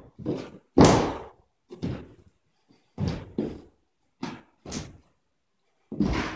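About eight sharp thuds and slaps at an uneven pace, the loudest about a second in, each dying away within a fraction of a second: impacts from a martial artist's stamping footwork and strikes during a Tai Chi Praying Mantis kung fu form.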